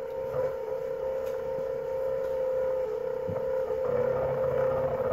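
NEMA 17 stepper motor driving the X-axis threaded-rod lead screw of a homemade CNC machine: a steady, even-pitched whine that starts abruptly as the motor is switched on. The carriage moves slowly, about seven seconds per inch.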